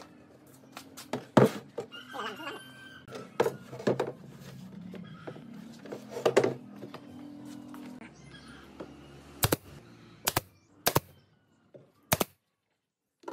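Pine boards and a wooden box knocked and set down on a workbench, over a low steady hum that stops about eight seconds in. Then a pneumatic nail gun fires four times, sharp single shots, as a pine roof panel is nailed on.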